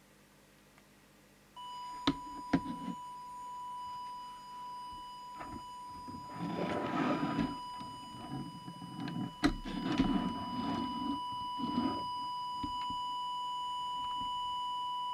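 Steady test tone from an audio oscillator, switched on about a second and a half in and held, played into a Realistic TRC1002 CB handheld's built-in microphone to set its transmit deviation. Sharp clicks and the rustle of the set being handled come over the tone.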